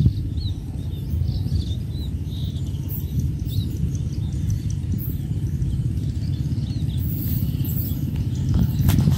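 Wind buffeting the microphone in a low, uneven rumble, with small birds chirping over it for the first few seconds and a few sharp clicks near the end.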